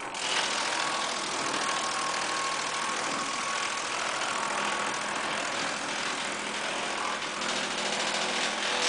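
Disk-type wood chipper running: a loud, dense mechanical noise that comes in sharply at the start and holds steady, with a faint whine in the first few seconds.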